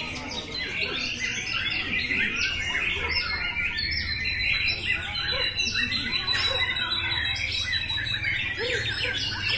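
Several caged white-rumped shamas (murai batu) singing at once, a dense, overlapping stream of rapid chirps and short whistles with no pause.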